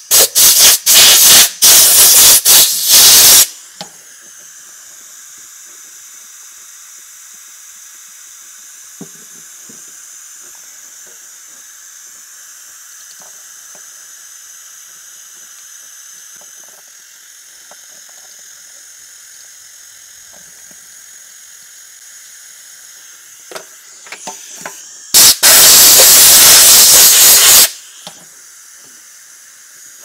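Aerosol cleaner sprayed onto a corroded electrical connector: a quick run of short spray bursts ending in a longer blast, then after a long quiet stretch a second sustained blast of about two and a half seconds. Small handling ticks and taps come between the blasts.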